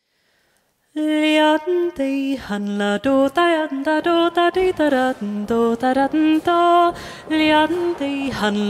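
Solo female voice singing a Swedish polska unaccompanied, lilting the tune in short, mostly detached notes, starting about a second in.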